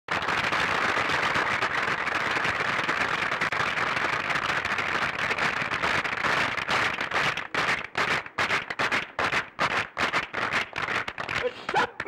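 Crowd applauding: dense clapping that after about six seconds thins into separate, rhythmic claps, about three a second.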